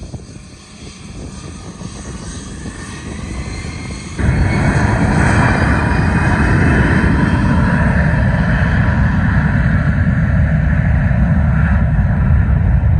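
Bombardier Global Express business jet's twin Rolls-Royce BR710 turbofans spooling up with a rising whine. About four seconds in, this jumps suddenly to a loud, steady jet roar with deep rumble as takeoff thrust is set and the jet rolls down the runway.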